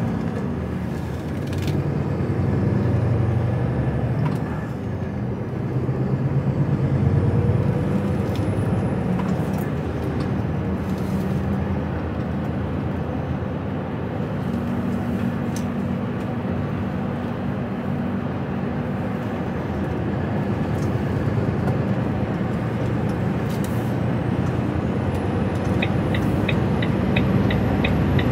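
Inside the cab of an HGV lorry on the move: steady diesel engine and tyre noise. A regular ticking, about three ticks a second, starts near the end.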